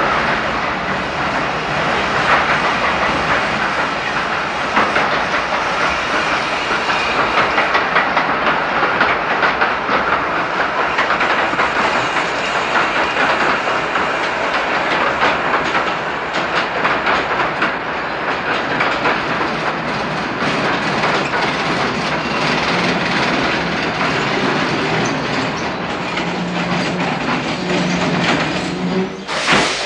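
Narrow-gauge steam train rolling into a station, its wheels clattering over the rail joints in a loud, continuous rumble. A low steady tone comes in over the last several seconds, then the sound drops away suddenly at the very end.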